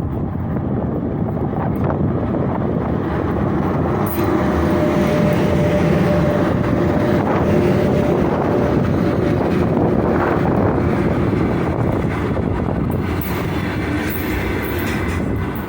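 Freight train hauled by a 3ES5K 'Ermak' electric locomotive rolling past, a steady rumble of wheels on rail, with a faint steady hum from about four to ten seconds in.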